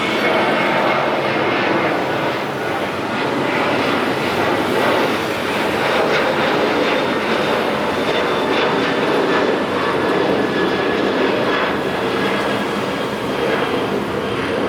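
Jet airliner's engines at takeoff power as it departs: a loud, steady rush of noise with a faint high whine.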